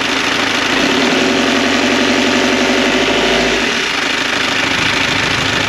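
Sailboat's inboard engine running while shifted into reverse to test a newly replaced Vetus flexible shaft coupling. The engine note changes under load about a second in and settles back just under four seconds in.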